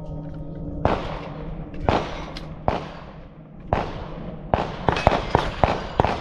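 A quick string of .22 rimfire rifle shots at steel plates: sharp cracks, each followed by the clang of the round striking steel, coming faster toward the end as the shooter swings across the targets to the stop plate.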